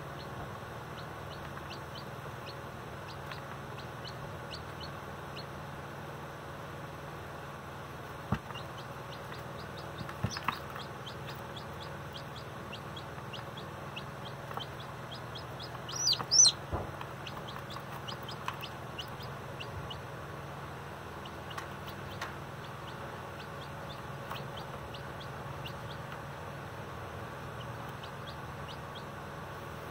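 Baby chicks peeping over and over, short high downward-sliding cheeps over a steady low hum, with a louder run of peeps about halfway through. A few sharp knocks come in between.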